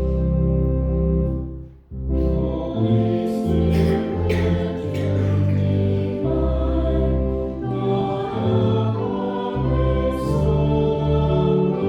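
A hymn sung by a choir or congregation with instrumental accompaniment, in sustained chords; the music breaks off briefly about two seconds in, then resumes.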